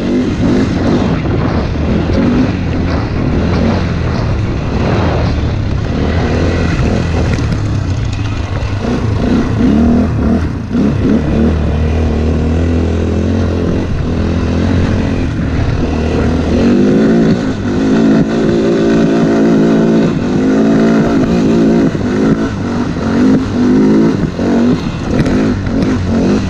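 KXD 200 cc ATV engine heard from a camera mounted on the quad, revving up and down as it is driven over rough ground, with the pitch rising and falling often in the second half.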